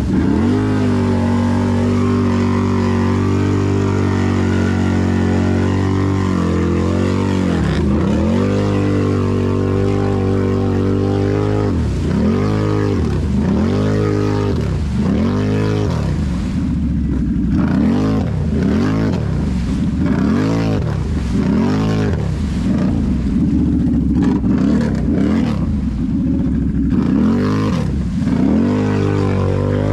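Can-Am Renegade XMR 1000 ATV's V-twin engine with an aftermarket megaphone exhaust, running at a steady speed at first. From around a third of the way in it is revved up and down over and over, about once a second.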